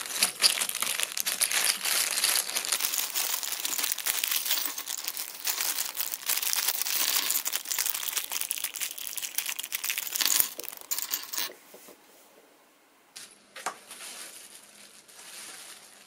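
Thin plastic zip bag crinkling as it is handled and opened, mixed with small clicks of plastic connector housings and metal crimp pins landing on a wooden table. The crinkling stops about eleven seconds in, and after a brief quiet gap lighter crinkling follows.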